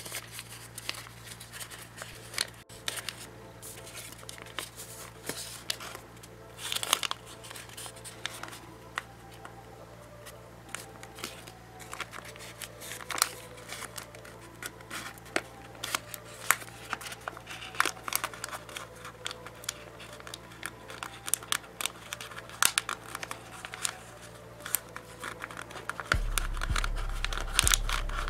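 Origami paper being folded and creased by hand: irregular crisp rustles and crinkles of paper handling over a faint low hum. Near the end a louder low hum comes in.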